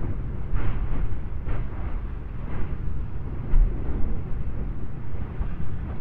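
Lava fountain of Iceland's 2023 Litli-Hrútur fissure eruption: a continuous thunderous low rumble with irregular splashing bursts about once a second as molten lava is thrown up and falls back.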